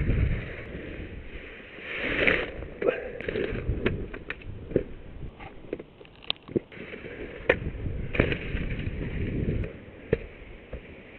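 Skis sliding and scraping over packed snow as skiers pass close by and go over a small jump, the noise swelling and fading as each passes. Sharp clicks and knocks from the skis come at irregular moments.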